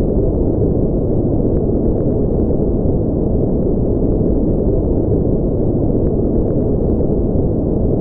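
Steady, unbroken noise for sleep, deep and rumbling with no hiss at the top: a white-noise track filtered so that its energy sits in the low end, like brown noise.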